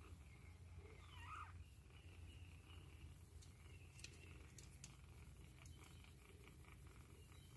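Very faint: a kitten gives one short mew about a second in, falling in pitch, over a low steady hum, with a few faint ticks later on.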